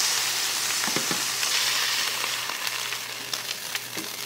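Beef blade roast and onions sizzling in a hot frying pan, a steady sizzle that eases a little toward the end, with a few light clicks of metal tongs against the pan.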